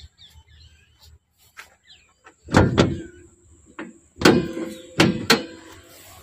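A car's steel bonnet clunking as it is released and worked open, the panel ringing briefly after each knock. There are two knocks close together about two and a half seconds in, a lighter one near four seconds, and three more in quick succession soon after.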